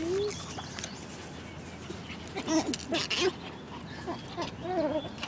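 Puppy whining in short pitched cries, one near the start and a cluster of several around the middle.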